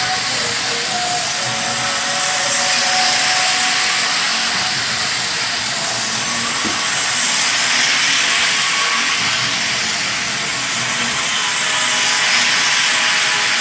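HO scale model train running on its track: the Life-Like F40PH diesel locomotive's small electric motor and the cars' metal wheels on the rails make a steady whirring hiss that swells and eases gently as the train goes round the loop.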